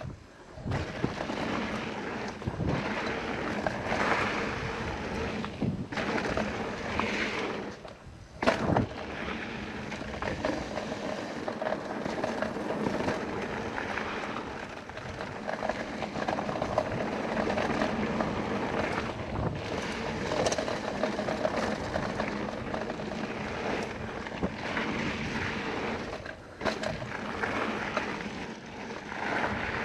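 Mountain bike riding fast downhill on a hard-packed dirt and gravel trail: steady tyre and wind noise with chain and frame rattle, a few brief lulls, and one sharp knock about eight and a half seconds in.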